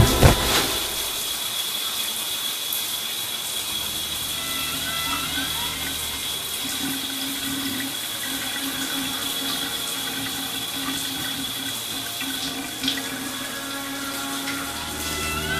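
Shower water running and draining away. A steady high held tone sits over it and stops shortly before the end. A sharp crack comes right at the start.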